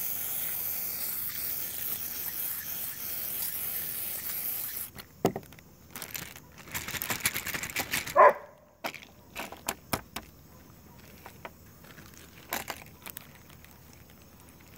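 Aerosol can of WD-40 spraying through its straw into a plastic bag of cartridges: a steady hiss that cuts off about five seconds in. Then the plastic bag crinkles and the cartridges inside clink as the bag is handled, with one louder knock about eight seconds in.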